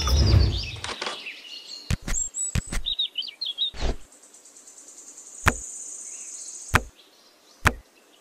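Miniature clay bricks knocking against each other as they are picked up and set down by hand, a sharp click every second or so, with birds chirping in the background. A low rumble fills the first second.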